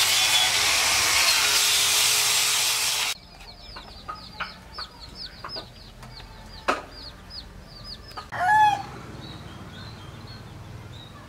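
Loud, steady rubbing of a hand working finish into a varnished wooden carving, which cuts off about three seconds in. After that come quieter outdoor sounds: birds chirping in a run of short falling notes, a single sharp click, and a brief, louder bird call past the middle.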